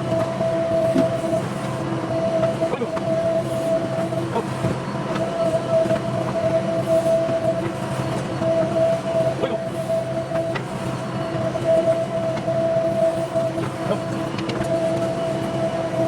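Heavy diesel construction machinery running steadily, a droning engine with a constant high whine, broken by occasional light clanks and knocks.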